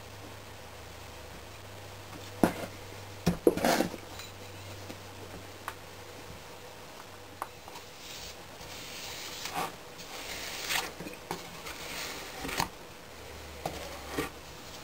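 A few sharp knocks about two to four seconds in as casting sand is packed into a wooden casting flask. From about eight seconds, a steel bar is scraped across the top of the flask in several rough strokes, striking off the excess sand, with a few more knocks near the end.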